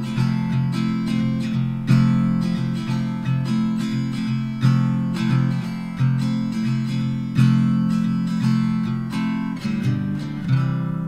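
Background music: acoustic guitar strumming chords in a steady rhythm, with the last chord left ringing near the end.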